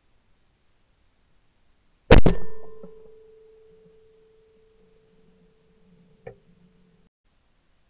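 A single shotgun shot at a flying clay target, loud and sudden, with a second crack right after. A steady ringing tone follows and lasts several seconds, broken by one small click near the end.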